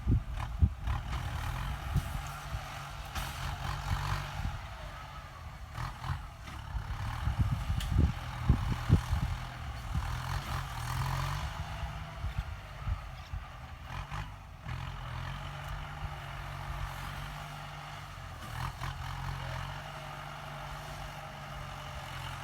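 Kubota M9540 tractor's diesel engine running steadily, with scattered short knocks.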